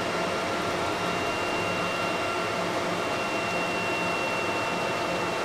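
Epilog laser engraver running with a steady mechanical hum and a thin, steady high whine while its gantry is jogged slowly toward the front of the bed.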